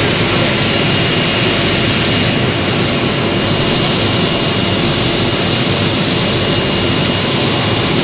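Fruit and vegetable washing machine running: water churning and bubbling hard in the stainless-steel tanks, a loud steady rushing noise with a thin steady whine through it.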